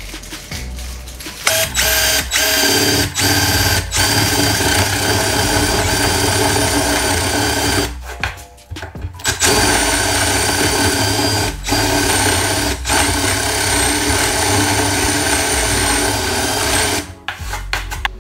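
Power drill running with a steady whine as a wood bit bores the faucet hole through a 2x6 butcher-block countertop. It starts about a second and a half in, stops for about a second and a half near the middle, eases off briefly a few times, and stops shortly before the end.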